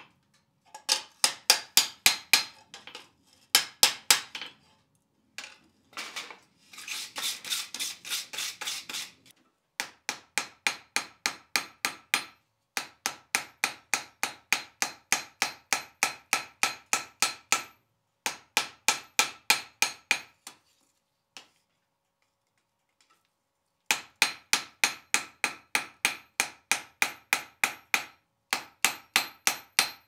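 Hand hammer striking a steel back plate on an anvil in quick runs of blows, about four a second, forging a bevel around the plate's edge while the steel is hot; the anvil rings through each run. The runs stop for short pauses, with a longer break of a few seconds about two-thirds of the way through.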